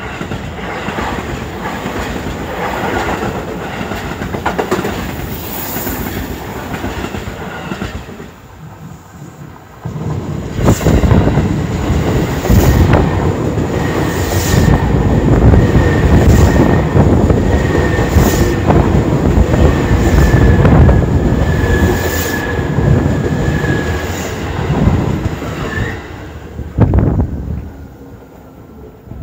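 Two electric trains passing close. First the Seibu 001 series Laview limited express, then, from about ten seconds in, a louder passing commuter train whose wheels click over a rail joint about every two seconds, car after car, with a steady whine through the middle of its pass.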